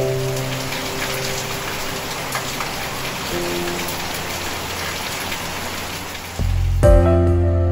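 Steady hiss of rain with soft music underneath; about six and a half seconds in, a deep low note comes in and the music grows louder over the rain.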